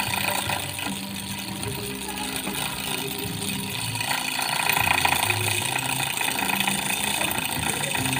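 Motor-driven hammer handpiece chattering rapidly against a monel ring as it taps a knocked (ketokan) texture into the metal, with a steady motor hum underneath.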